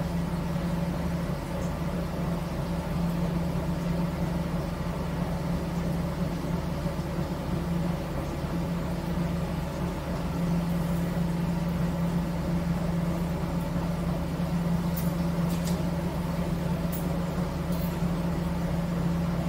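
Car ferry's MWM diesel engine running steadily, a deep even drone with a strong low hum, heard through the wheelhouse. A few faint clicks come near the end.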